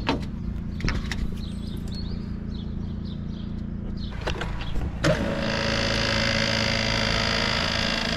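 A low, steady pump hum with a few light clicks of glass sample jars being moved. About five seconds in, the louder, steady whir of a fuel polishing machine's pump cuts in suddenly, with a hiss over it, as it circulates diesel through its filters.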